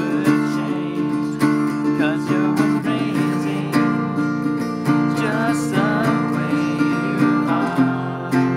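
Cort acoustic guitar with a capo being strummed, with voices singing along over the chords.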